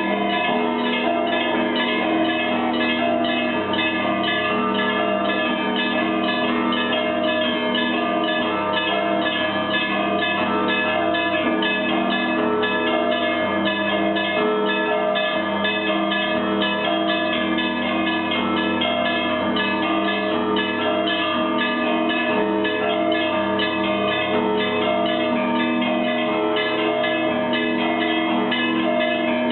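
Russian Orthodox monastery bells ringing in a continuous peal. Small bells are struck in quick, dense patterns over the sustained tones of the larger bells.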